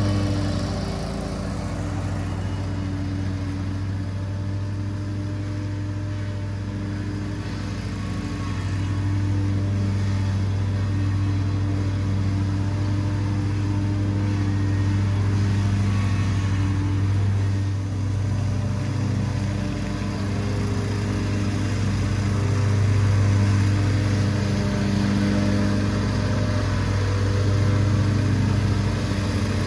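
Commercial lawn mower engine running steadily while mowing, a constant hum that swells and eases a little as the mower moves about the lawn.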